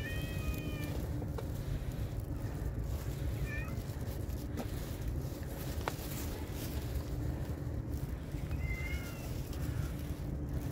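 Cats meowing: a meow at the start, a short one a few seconds in, and another near the end, over a steady low background rumble.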